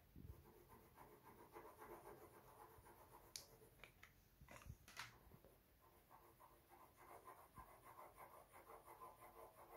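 Near silence, with faint handling noise from the dongle and its USB cable: soft scrapes and a few sharp little clicks, the clearest about three and a half and five seconds in.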